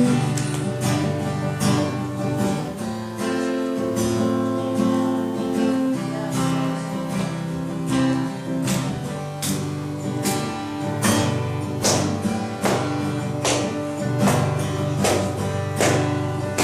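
Acoustic guitar strummed in an instrumental passage, with steady repeated strokes over held, changing chords.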